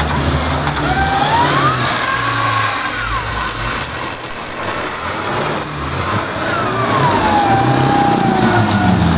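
Jeep Cherokee engine revving under load as its mud tyres spin in the mud, with a whine that rises and falls in pitch.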